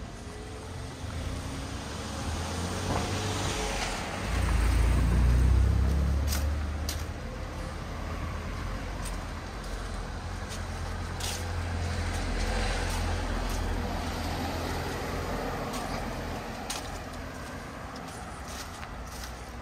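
A car passing close by on a wet street: its tyre hiss builds over the first few seconds, and its rumble is loudest about four to eight seconds in. It then settles into a steady low traffic hum with a few faint sharp clicks.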